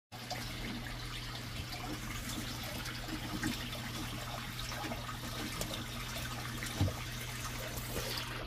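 Water trickling steadily into a caiman's enclosure pool, over a low steady hum, with one soft thump about seven seconds in.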